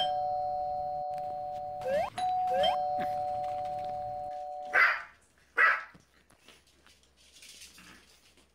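A two-tone doorbell chime rings twice, each ring held about two seconds. Then two long-haired chihuahuas bark twice in quick succession.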